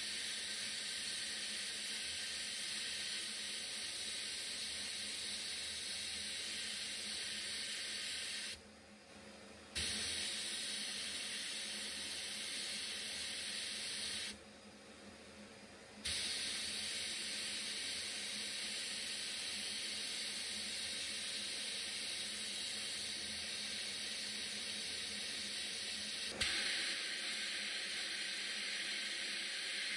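Sandblasting cabinet gun hissing steadily as it blasts a small rusty steel crank handle and gear. The blast cuts out twice, briefly. There is a click near the end, after which the hiss carries on.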